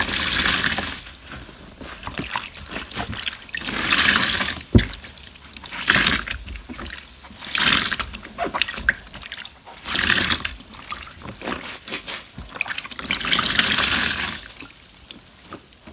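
Water gushing out of a soaked sponge as it is squeezed over and over, one gush every two seconds or so, with dripping and trickling between squeezes.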